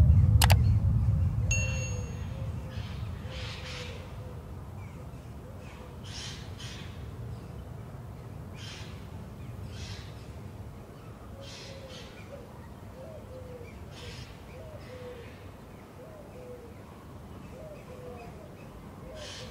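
A sharp click and a short bell-like ding, as from a subscribe-button animation, over a low whoosh that fades over the first couple of seconds. After that come faint, short soft noises every second or two over a quiet, faintly wavering background.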